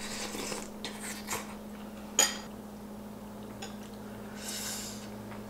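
Chopsticks and dishes clinking softly during a meal, with one sharp click of utensil on a dish about two seconds in and a short hiss near the end, over a steady low hum.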